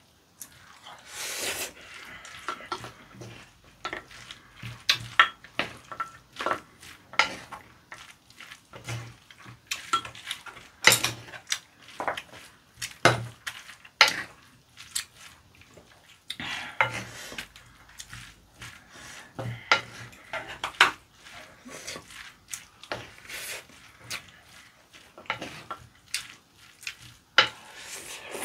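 Metal spoon clinking and scraping against a ceramic bowl as rice, raw squid sashimi and red chili sauce are mixed together: irregular sharp clinks, sometimes several close together, with short gaps between.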